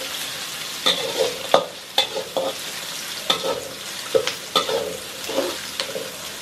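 Sliced onions sizzling in hot oil in a wok as they are sautéed soft, while a metal spatula stirs them, scraping and clicking against the pan in irregular strokes.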